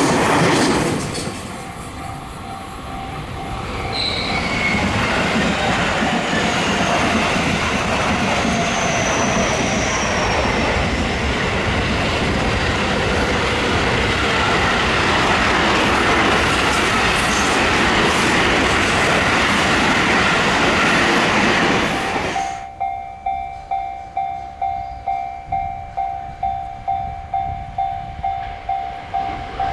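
A train passing over a level crossing, its wheels rumbling and clattering on the rails with a brief high squeal, while the Japanese crossing's electronic warning bell rings under it. About 22 seconds in the train noise stops abruptly and the crossing bell rings on alone, a steady ding a little over twice a second.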